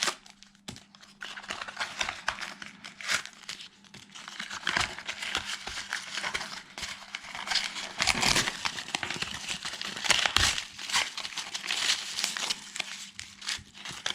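Plastic packaging bags crinkling and being torn open by hand, a dense run of rustles and sharp crackles that is busiest about eight to ten seconds in.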